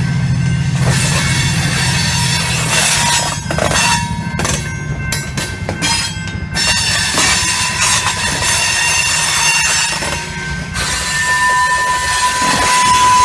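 Covered hopper cars of a freight train rolling past, wheels knocking on the rails and flanges squealing with a high steady tone that grows louder near the end.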